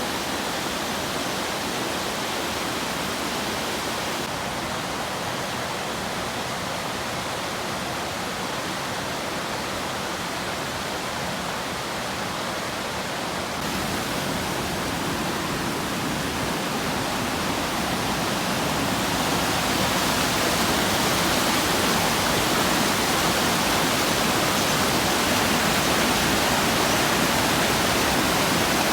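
Rushing water from a waterfall or fast stream, a steady hiss that grows louder about halfway through and then holds.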